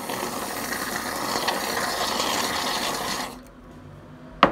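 Whipped cream dispenser hissing and sputtering as cream is sprayed onto a waffle, the canister nearly empty so the cream spits out; it stops a little after three seconds in. A single sharp knock near the end.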